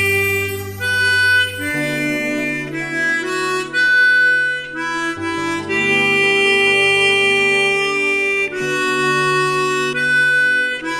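Harmonica playing a slow melody in long held notes, over a sustained low accompaniment whose bass notes change a couple of times.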